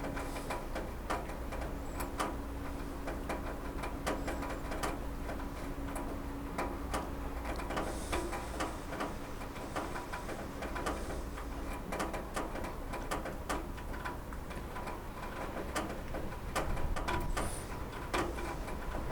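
Rain falling on a roof: irregular drops tapping and ticking over a steady patter. A faint steady hum runs underneath and stops about twelve seconds in.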